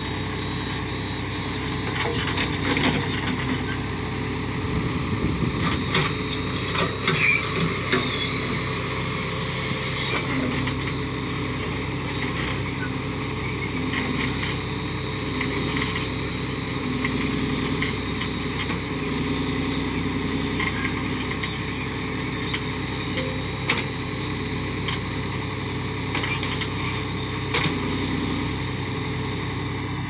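Swaraj 963 tractor's diesel engine running steadily under load as its S-2216 backhoe digs a trench, with scattered sharp knocks of the bucket against stones. A steady high-pitched drone sits over the engine throughout.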